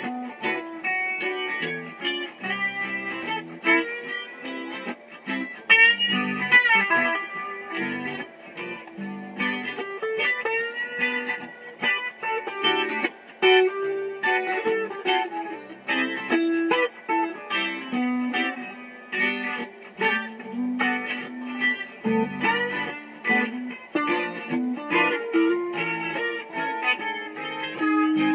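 Electric guitar played solo, a continuous run of single plucked notes and short phrases with a few string bends.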